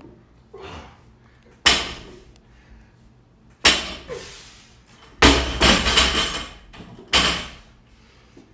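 Barbell loaded with rubber bumper plates knocking down on a rubber mat at each deadlift rep, four times about two seconds apart, the plates rattling briefly after each. The third set-down is longer, a cluster of knocks.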